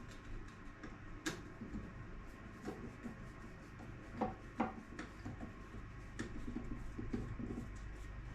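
Faint, scattered clicks and light knocks, like plastic toilet-cistern parts being handled, over a steady low hum.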